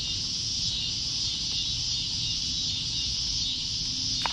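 Steady high-pitched chorus of summer insects. Near the end comes one short, sharp splash as a released channel catfish hits the water.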